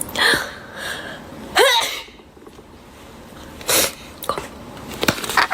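A person sneezing from a pollen allergy. The loudest sneeze comes about a second and a half in: a voiced intake rising in pitch, breaking into a sharp burst of breath. A shorter breathy burst follows about two seconds later.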